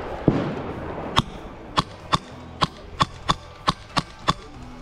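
Airsoft guns firing single shots: about ten sharp cracks at uneven intervals.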